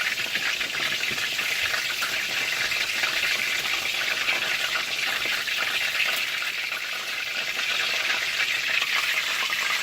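Battered chicken pieces deep-frying in hot oil: a steady sizzle with scattered small crackles.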